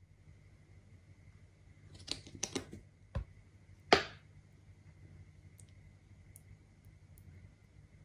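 Clicks and knocks of plastic sauce squeeze bottles being handled over a glass bowl. The loudest is a sharp burst about four seconds in, as the ketchup bottle is squeezed.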